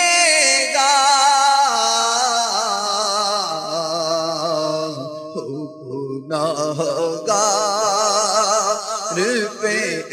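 Male voice singing a naat, a devotional Urdu poem, in long drawn-out wordless notes with a wavering vibrato, briefly softer a little past the middle.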